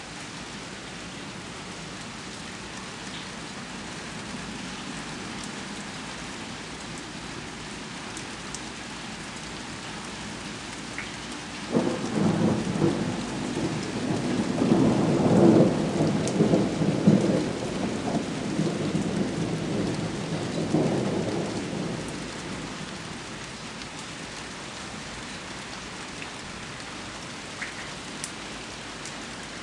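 Steady rain hissing, with scattered drops ticking. About twelve seconds in, a rolling rumble of thunder breaks out suddenly, swells and fades over some ten seconds.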